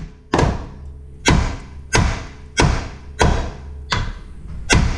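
Hammer striking a Honda Accord's steel front steering knuckle at the tie rod end, seven sharp blows about two-thirds of a second apart, each ringing briefly. The blows shock the tapered tie rod end stud loose from the knuckle.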